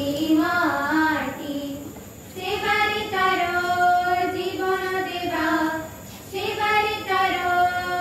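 A group of schoolchildren singing a song in Odia, in long held phrases with short breaks about two seconds in and again about six seconds in.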